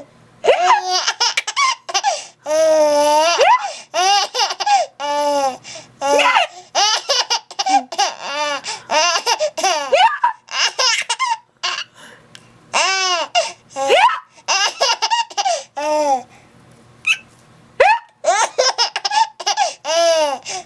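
A young child laughing hard and high-pitched in repeated bursts of rapid laughs, with a couple of brief pauses for breath.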